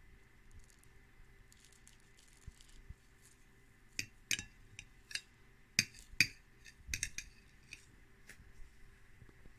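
Kitchenware being handled: about ten sharp clinks and taps in quick succession, starting about four seconds in. Faint rustling comes before them.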